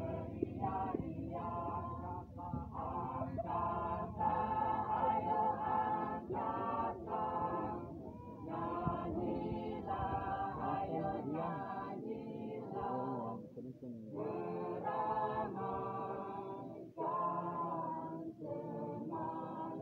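Men's and women's voices singing together without instruments: a group performing a masamper, the Sangihe choral song, in phrases with short breaks between them.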